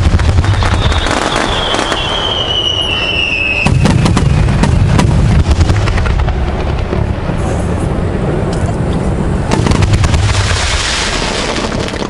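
Aerial fireworks display: repeated deep booms of shells bursting, with sharp crackling throughout. A whistle falls in pitch from about a second in until nearly four seconds, ending in another burst.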